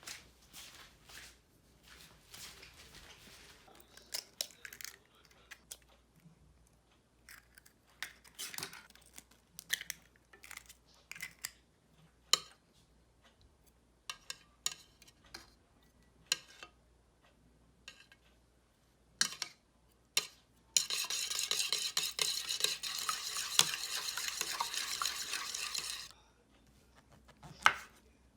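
Kitchen utensils clinking and scraping against bowls and dishes in irregular, separate strokes while eggs are prepared. About two-thirds through comes a dense, steady rush of noise lasting about five seconds, the loudest part, followed by one last clink.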